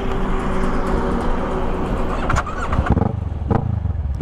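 Kawasaki Z650 parallel-twin engine idling with a steady low rumble, over a rush of road traffic that fades after about three seconds. Three sharp knocks come in the second half.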